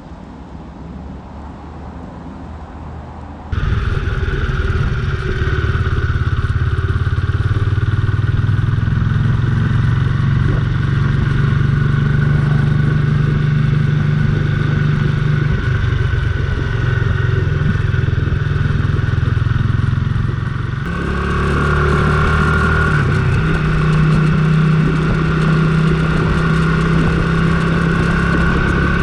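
Kawasaki Estrella's single-cylinder engine running steadily as the motorcycle is ridden. It is quieter for the first few seconds, then suddenly louder, and its tone shifts slightly about two-thirds of the way through.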